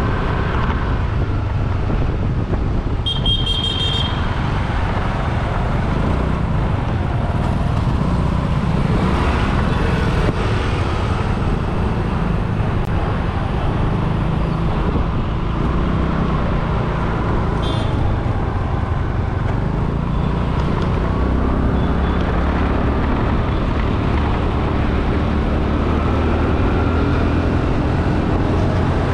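Steady wind and road noise from riding a two-wheeler through traffic, with a high-pitched vehicle horn honking for about a second some three seconds in and a shorter, fainter honk around eighteen seconds.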